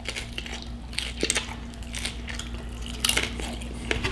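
Crunching and chewing of a nacho tortilla chip: irregular crisp crunches, with a few louder ones about a second in, near three seconds and near the end.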